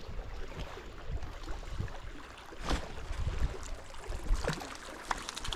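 Small mountain creek running over a shallow gravel riffle, with wind rumbling on the microphone.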